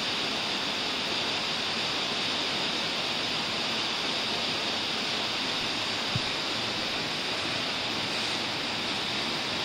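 Steady rushing of water from a creek waterfall, heard as an even hiss, with one faint click about six seconds in.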